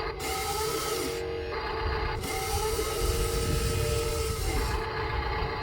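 Huina 1:14 RC bulldozer's electric drive motors and gearboxes whining and grinding in two runs, the first short and the second about two and a half seconds long, each winding up at the start and down at the end. Underneath, a steady engine-idle hum.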